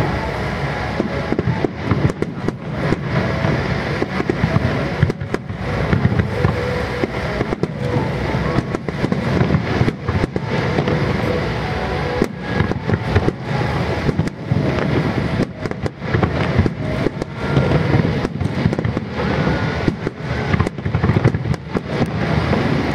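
Aerial fireworks display: a dense, unbroken barrage of bangs from many shells bursting together over the sea.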